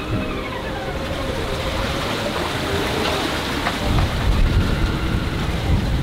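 Sea water rushing and splashing along the hull of a sailing yacht under way in a swell, with wind on the microphone and a deep rumble. Faint whistling tones glide up and down above the rush.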